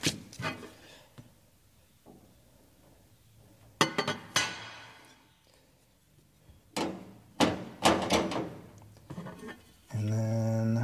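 Scattered clinks and knocks of a sheet-metal pegboard shelf and its bracket being handled and fitted together on a desktop, several in quick succession a little past the middle. Near the end a steady low buzzing tone starts.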